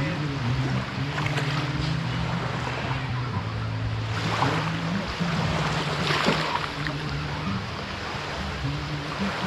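Sea surf washing onto a beach, with two louder wave surges a little after four and six seconds in, under a low held tone that shifts pitch in steps.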